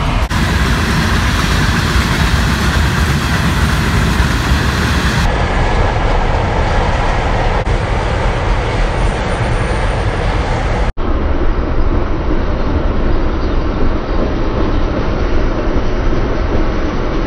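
Freight train of hopper cars and boxcars rolling past close by, a steady loud noise of steel wheels running on the rails.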